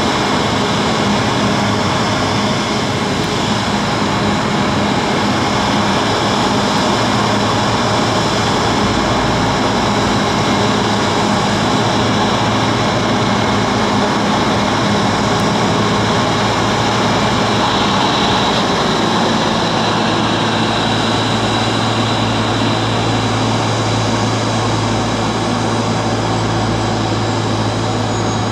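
Embraer E195-E2 airliner's Pratt & Whitney PW1900G geared turbofan engines running steadily. A deeper low hum strengthens about two-thirds of the way through.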